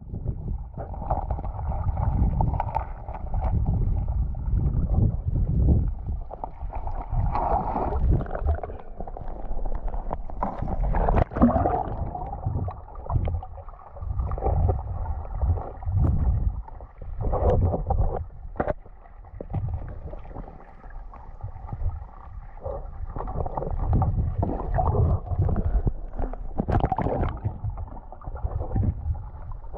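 Muffled underwater sound picked up by a camera in a waterproof housing in a river: uneven water rumble and gurgling, with a few sharp knocks scattered through.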